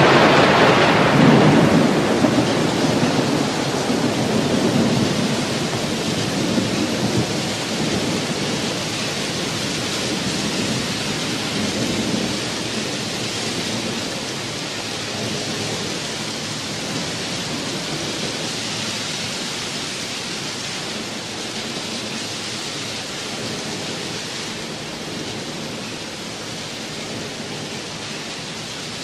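Thunderstorm recording: a rumble of thunder at the start that dies away into steady, heavy rain, slowly fading.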